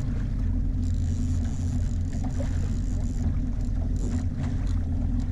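A fishing boat's motor running steadily, a low even hum.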